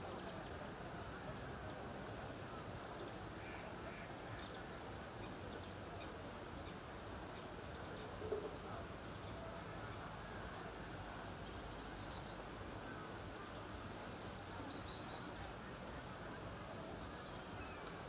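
Outdoor lakeside ambience: small birds give short, high chirps now and then over a steady low background noise. There is one brief, louder low sound about eight seconds in.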